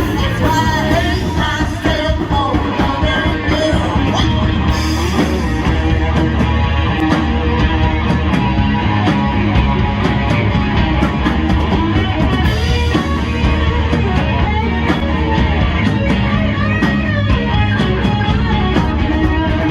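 Live rock band playing a song, with a singer over drums and amplified instruments.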